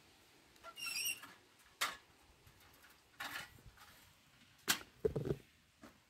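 Sparse light clicks, knocks and rustles of hand-picking grape bunches into a plastic bowl, with a short high squeak about a second in.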